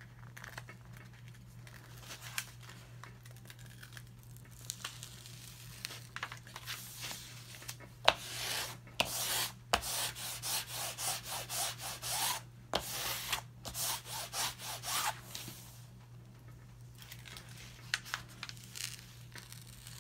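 Rustling and rubbing as a large diamond-painting canvas is handled and shifted, coming in a run of bursts through the middle with one sharp click about eight seconds in, over a steady low hum.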